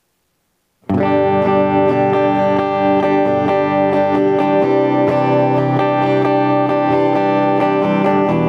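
JCraft LT1 Classic Telecaster-style electric guitar played clean, neck and bridge pickups together with the tone knob fully open, recorded direct with no amp or effects. Ringing chords and picked notes start about a second in.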